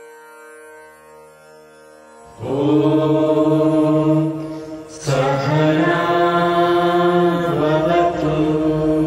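Voices chanting a prayer together in long held notes, a mantra-like chant. It comes in loudly about two seconds in over a soft, steady instrumental tone, breaks briefly near the middle, then carries on.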